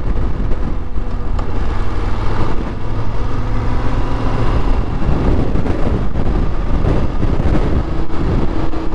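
BMW F850GS parallel-twin motorcycle engine running under way, with wind and road noise on the helmet microphone; a steady engine note in the first couple of seconds gives way mostly to rushing wind and road noise.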